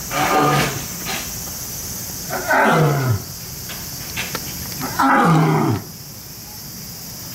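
A male lion roaring: three loud calls about two and a half seconds apart, each falling steeply in pitch over less than a second.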